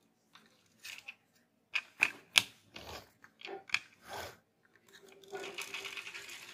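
Sharp plastic clicks and crackles as a toy fire truck is handled. About five seconds in comes a steady whir, with one held tone, as the toy fire truck rolls across a wooden table.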